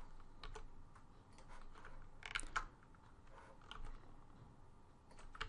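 Faint, irregular clicks of a computer keyboard and mouse being used, with a quick run of several clicks a little over two seconds in.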